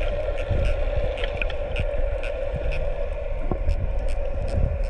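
Underwater sound picked up by a camera in a waterproof housing: a steady low rumble under a constant hum, with scattered sharp clicks throughout.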